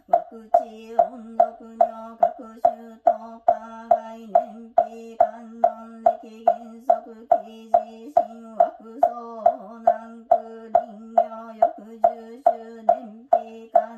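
Buddhist sutra chanting in a steady monotone, kept in time by a wooden fish (mokugyo) struck evenly about three times a second.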